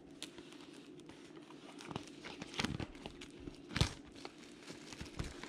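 Clear cellophane shrink-wrap being torn and crinkled off a cardboard trading-card hobby box, in scattered crackles with a couple of sharper ones past the middle.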